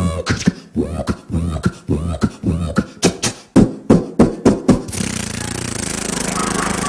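A man's mouth-made sound effects: irregular rhythmic pops and sputters over a low hum, imitating a jetpack engine running out of fuel. About five seconds in they give way to a steady rushing noise.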